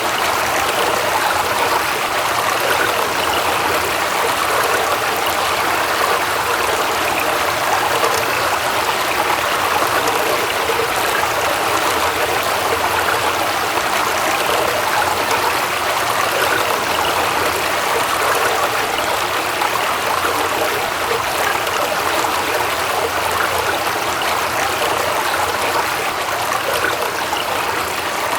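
Waterfall, water pouring and splashing steadily without change.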